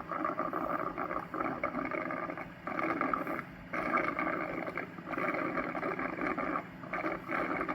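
Cuckoo robot vacuum docking station's water pump filling the robot's water tank: a churning, gurgling run with a low hum underneath and several short breaks.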